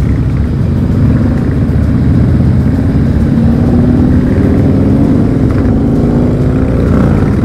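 Harley-Davidson Dyna Low Rider's air-cooled V-twin engine running at riding speed. Its pitch rises a little a couple of seconds in and then settles back.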